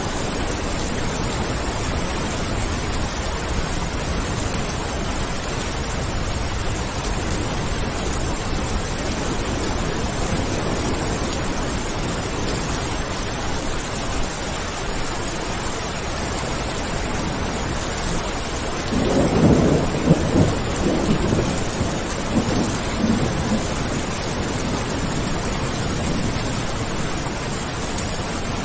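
Steady rain falling, with a roll of thunder rumbling up about two-thirds of the way through and dying away a few seconds later.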